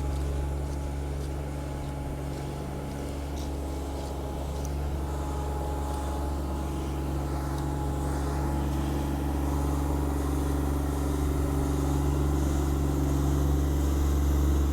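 A large engine running steadily at a constant speed, a low hum with a few even overtones, growing slightly louder toward the end.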